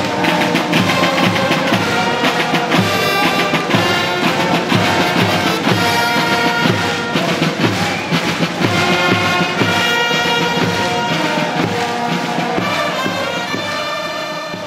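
A brass band playing live: trombones and trumpets over a steady bass-drum beat.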